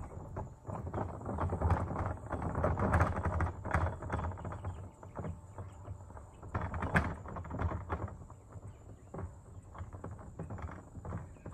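Wheeled plastic trash bin being pulled along, its wheels rolling and clattering over the ground in an uneven rumble that swells and fades.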